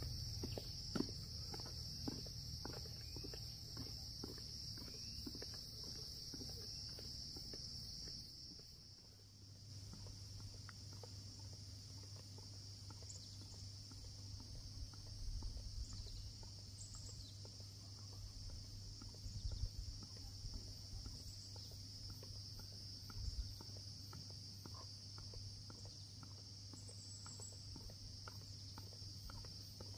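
Steady, high-pitched chirring of insects, with scattered light knocks and taps; the sound dips briefly about nine seconds in.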